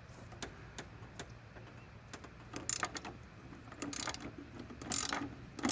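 Stanley flex-head ratchet with a coarse, roughly 45-tooth mechanism clicking in short runs as it is swung on a trailer wheel bolt, the clicks coming in the second half.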